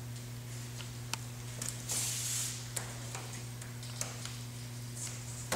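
Quiet handling of a composite repair coil while adhesive is brushed into its seam: scattered light clicks and taps, with a brief brushing swish about two seconds in, over a steady low hum.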